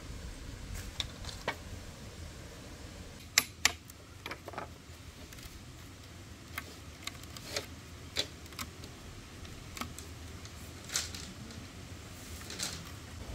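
Irregular sharp clicks and light taps of hard objects being handled, with two louder knocks close together about three and a half seconds in.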